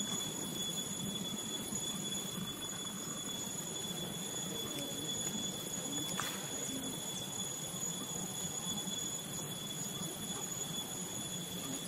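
Steady outdoor background noise with a constant, unchanging high-pitched whine; no distinct event stands out.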